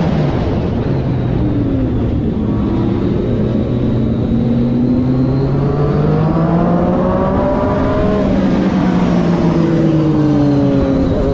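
Triumph Daytona 675R's 675 cc inline-three engine at racing revs. Its pitch climbs steadily for several seconds as it accelerates, falls away for a couple of seconds as the bike slows, and rises again near the end.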